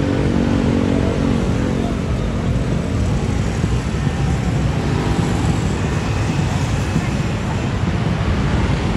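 Busy street traffic: motorcycle and car engines and passing buses, with voices mixed in. A steady held tone sounds at the start and fades out after about a second and a half.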